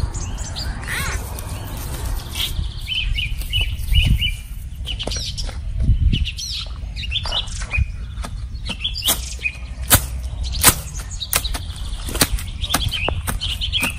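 Small birds chirping, with two low thumps about four and six seconds in. From about nine seconds in, sharp strikes about once a second as a hand digging tool is driven into the soil.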